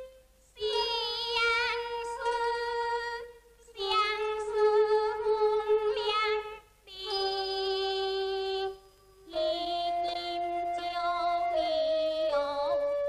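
A woman singing a Teochew opera aria in a high voice, holding long notes with wavering ornaments and bends. She sings four phrases with short breaks between them.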